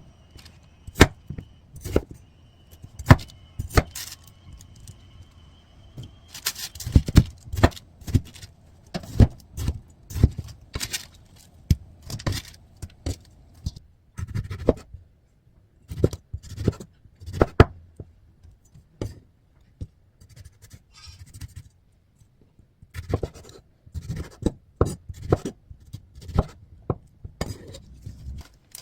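Kitchen handling sounds: irregular clinks, taps and scrapes of dishes and utensils being set down and moved, with a faint steady high whine during the first six seconds.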